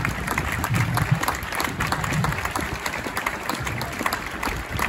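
Crowd applauding: many people clapping together in a dense, irregular patter.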